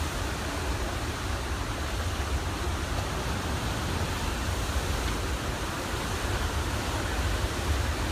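Steady rushing of floodwater pouring out of a dam's outlet works in a flood release of about 7,800 cubic feet per second, churning into whitewater in the channel below.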